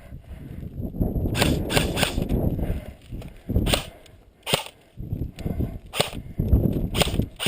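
Airsoft gun firing single shots, about ten sharp cracks at uneven intervals, with wind buffeting the microphone as a low rumble underneath.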